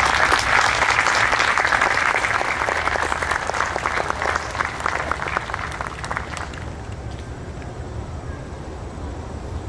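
Audience applauding, a dense round of clapping that thins out and dies away about six and a half seconds in, leaving a steady low background rumble.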